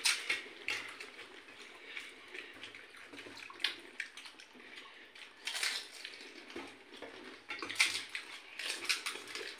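Pani puri (gupuchup) being eaten: irregular wet crunches and slurps as the crisp water-filled shells are bitten, with a few louder ones among quieter handling.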